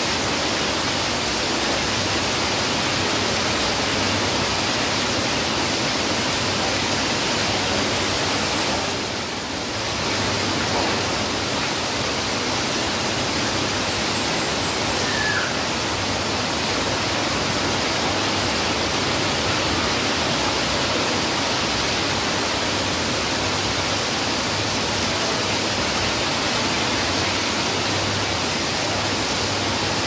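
Heavy rain falling steadily on foliage and roofs, with runoff pouring off a roof edge; the hiss eases briefly about a third of the way in.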